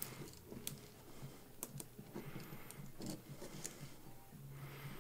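Faint, irregular small clicks and rustling of a nylon zip tie being threaded and pulled through a carbon-fibre quadcopter frame by hand.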